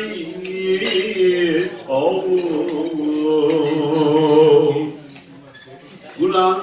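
A man chanting in a sung voice through a microphone, holding long notes that waver in pitch. He breaks off about five seconds in and starts again just before the end.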